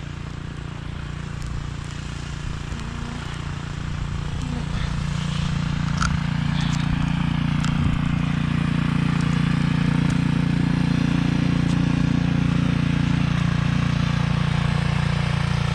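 Car running on the road, heard from inside the cabin: a steady low engine and road drone that grows louder between about four and eight seconds in, then holds steady.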